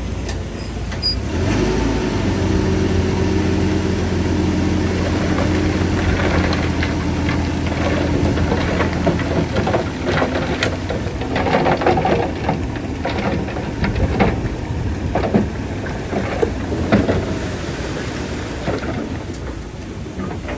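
Shantui DH-17C3 bulldozer's diesel engine running steadily under load. From about halfway through, irregular clanks and rattles come over it, then ease off near the end.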